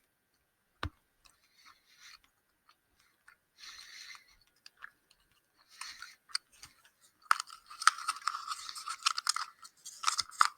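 Close-miked chewing of a gummy candy: sticky, wet clicking mouth noises, sparse at first and growing dense and loud about seven seconds in, with a single sharp knock about a second in.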